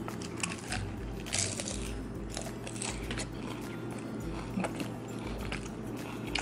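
A person biting into and chewing a shrimp taco topped with cold, crispy coleslaw, with irregular crunches throughout.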